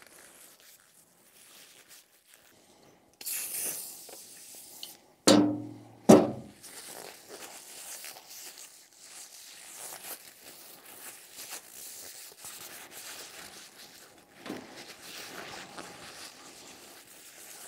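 An aerosol spray can hisses for about two seconds, then two sharp knocks follow, the loudest sounds here. After them comes soft paper-towel rubbing and rustling as the glass diesel fuel-filter bowl is wiped clean.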